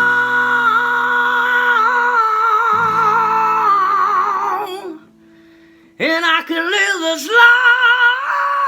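Singing with acoustic guitar: a singer holds one long note with vibrato over ringing guitar notes that fade away. After about a second's pause, the singer comes back in with sliding notes and settles on another long held note.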